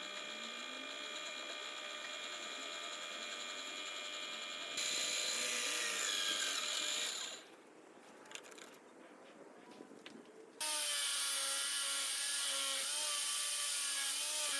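An electric drill drives a homemade wood lathe, its motor whining steadily, with stretches of rasping as wood is worked against the spinning piece. The sound jumps louder about five seconds in, drops back to quieter running with small clicks around seven and a half seconds, then cuts abruptly to loud rasping near eleven seconds.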